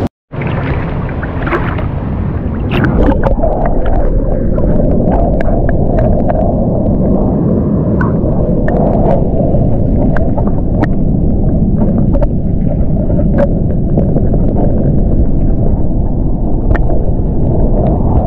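Loud, steady low rumble of wind and surf at the shoreline, with faint scattered clicks over it.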